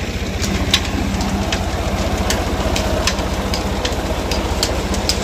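Ford 3600 tractor's three-cylinder diesel engine running steadily at a fixed speed as it drives a tubewell pump through its shaft: a fast, even low beat with scattered sharp ticks over it.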